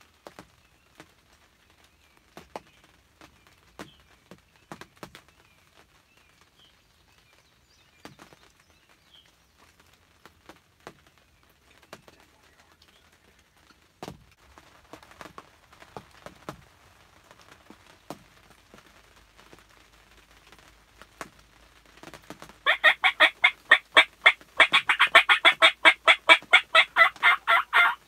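Loud turkey yelping, a run of raspy notes at about five a second, starting about three-quarters of the way in, with a short break. Before it, only faint scattered taps.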